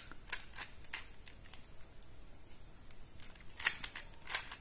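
Plastic pieces of a QJ Super Square-1 puzzle cube clicking as its layers are turned by hand: faint scattered clicks, then two louder clacks near the end as the puzzle is twisted along its middle slice.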